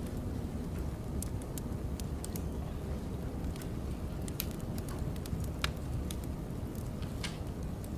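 Firewood burning: a steady low rumble with irregular sharp crackles and pops, a few each second.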